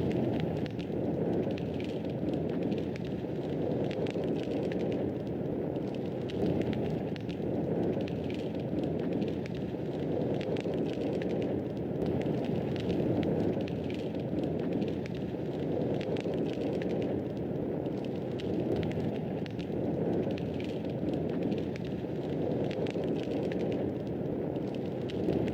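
Wood fire burning in a fireplace: a steady low rushing of flames with constant small crackles and pops.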